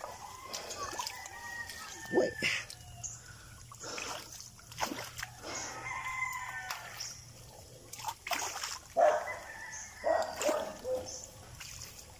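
Roosters crowing, with drawn-out calls near the start and again about nine seconds in. Short slaps and splashes of footsteps on the wet concrete of a shallow canal fall between the calls.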